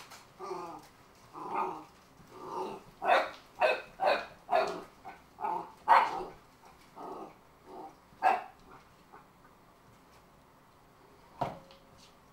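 Cardigan Welsh Corgi puppy barking at a can in a run of short, sharp barks, about a dozen over some eight seconds, then falling quiet. A single knock comes near the end.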